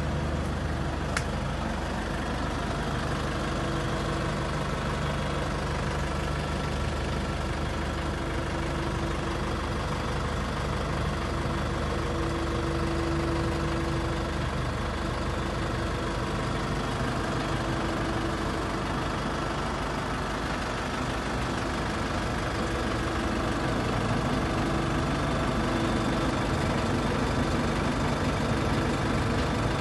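Truck-mounted cement mixer running, its diesel engine turning over steadily at idle, with a single sharp click about a second in.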